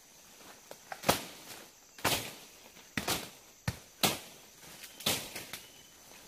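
Wood being chopped with a blade: sharp, irregular blows about once a second, each with a brief ring after it.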